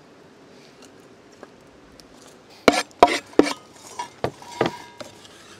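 Clatter of a knife and wooden boards being handled on a camp table: three loud sharp knocks in quick succession about halfway in, then several lighter clinks, one with a brief metallic ring.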